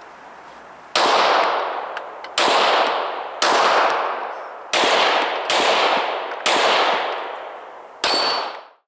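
Seven pistol shots fired about a second apart, each followed by a ringing echo that dies away over the next second.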